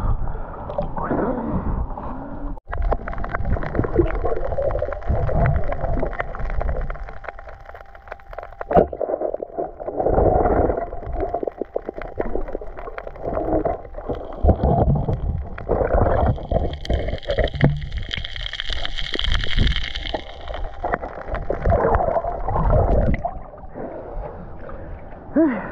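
Gurgling water and bubbles heard through a camera held underwater during a night dive, uneven and swelling, with many small clicks and crackles, and a brief hiss about two-thirds of the way through.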